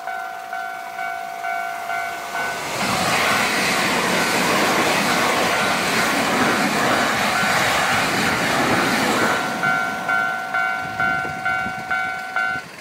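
Electric train passing a level crossing, its loud rush swelling from about three seconds in and easing off near the ten-second mark. Around it, the crossing's warning bell rings at about two strokes a second, drowned by the train for several seconds in the middle.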